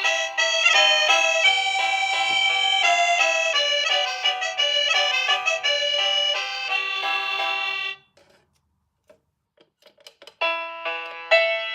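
Electronic doorbell playing one of its chime melodies, a tune of quick electronic notes that stops about eight seconds in. After a short gap with a few faint clicks, another chime melody starts.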